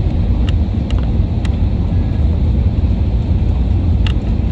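Steady low rumble of airliner cabin noise inside an Airbus A321 in flight, with a few faint clicks.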